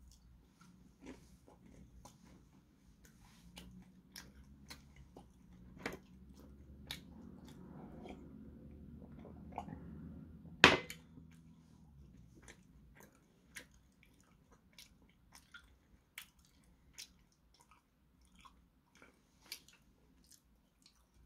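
Close-up eating sounds: a man chewing, with scattered small wet mouth clicks and smacks. In the middle comes a few seconds of drinking from a glass, ending in one sharp knock, the loudest sound here.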